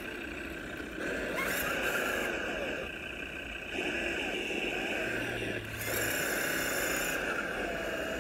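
Electric motor and gear drivetrain of a scale RC crawler truck whining as it crawls over a dirt bank towing a trailer, the whine going up and down in a few surges with the throttle.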